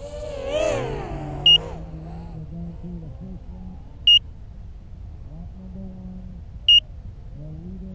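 Crashed FPV racing quadcopter's locator beeper sounding a short high beep about every two and a half seconds, three times, so the downed quad can be found in the grass. Under it, the motors of other racing drones whine, rising and falling in pitch, most strongly in the first second and a half.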